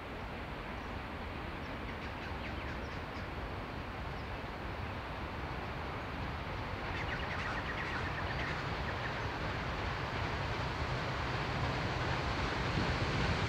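Steam train approaching from a distance: a steady rumble that grows gradually louder, with a few faint high chirps around two and seven seconds in.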